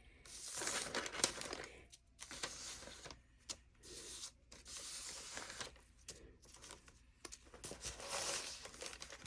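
Quiet rustling and crinkling of light, papery material being handled, coming and going in several short stretches.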